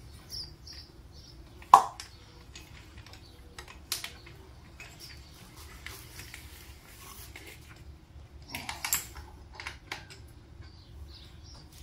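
Scattered clicks and metal knocks of hand tools being worked on an engine, with one sharp knock about two seconds in and a quick cluster of clicks near the end.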